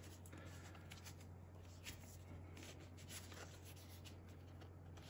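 Faint rustling and scraping of plastic cards being slid into the slots of an Osprey fabric card-sleeve wallet, with a few soft ticks.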